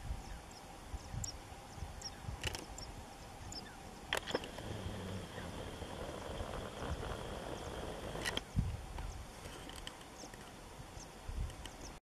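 Outdoor field ambience: a low wind rumble on the microphone, three sharp clicks, and scattered faint, short high chirps, with a thin steady high tone from about four to eight seconds in.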